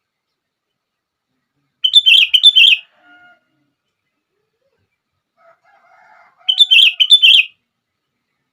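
Sooty-headed bulbul (kutilang) singing: two short phrases of quick notes, each about a second long and about four and a half seconds apart, with faint softer notes between them.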